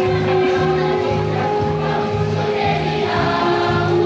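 A mixed high-school choir of boys and girls singing in held, sustained notes over a low accompaniment that pulses about twice a second.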